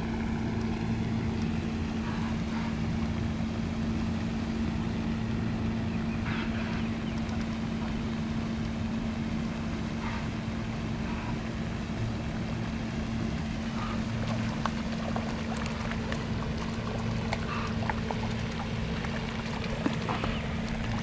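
A steady low hum and rumble, like a motor running. Near the end come a few small splashes as a hooked fish breaks the surface.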